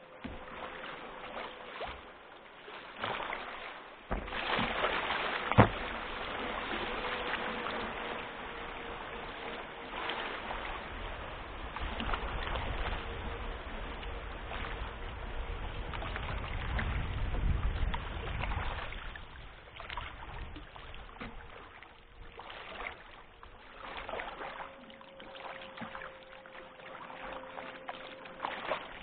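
River water rushing and splashing around a kayak in the current below a low dam, with paddle strokes and a sharp knock about five and a half seconds in. A low rumble swells briefly past the middle.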